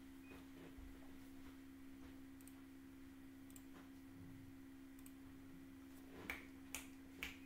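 Near silence: a steady low hum runs throughout, with three short faint clicks near the end.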